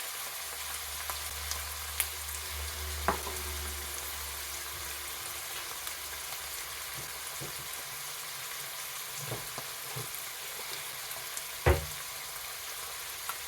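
Onions, garlic, ginger and spices sizzling steadily in oil in a pot, with occasional clicks of a spoon stirring against the pot and one louder knock near the end. A low hum runs under the first few seconds.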